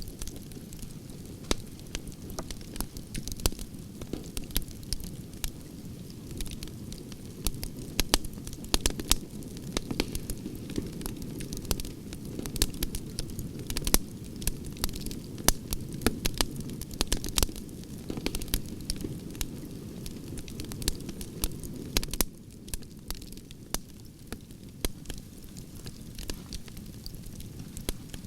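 Campfire of burning logs crackling, with frequent sharp pops over a low steady rumble; the rumble drops suddenly about three-quarters of the way through.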